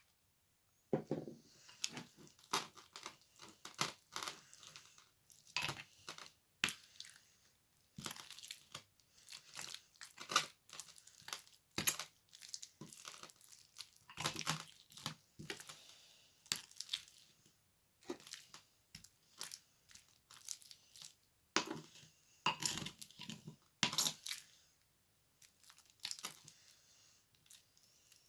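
Slime being squeezed, poked and stretched by hand, giving irregular crackles, clicks and pops.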